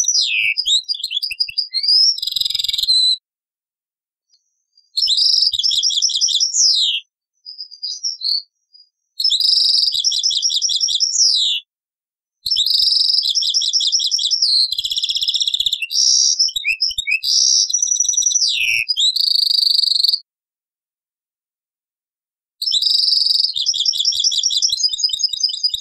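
European goldfinch singing from an old cassette recording: rapid twittering trills and buzzy notes in phrases of about two to eight seconds, broken by short silences.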